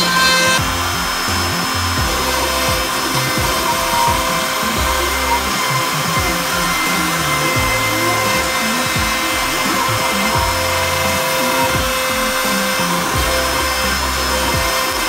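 CNC gantry router's spindle running steadily as it mills solid wood, a steady whine over a noisy hiss, with background music.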